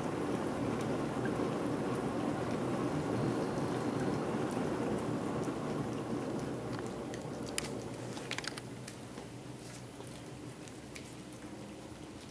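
Cat chewing and licking a boiled potato: a steady wet, crackly noise that dies down after about seven seconds, with a few sharp clicks around eight seconds in.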